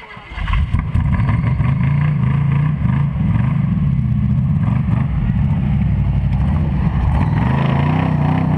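Off-road competition vehicle's engine running loud and revving up and down repeatedly, starting abruptly about half a second in.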